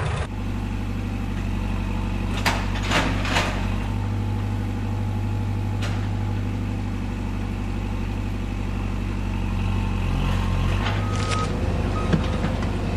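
Remote-control toy construction machine running with a steady low engine-like hum, with a few sharp clicks and knocks over it.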